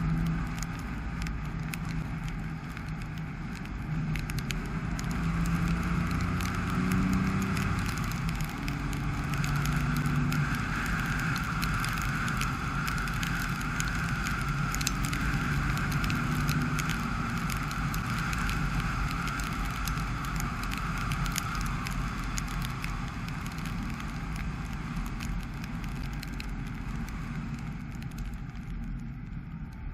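Dacia Sandero Stepway driving on a wet road: the engine runs with its pitch shifting as speed changes, under steady tyre noise that swells in the middle, with scattered light ticks.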